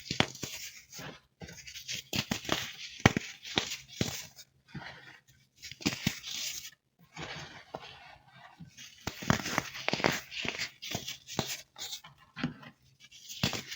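Crisp, pressed baking soda being crushed and crumbled, a dense run of sharp cracks and crunches that comes in bursts with short pauses between them.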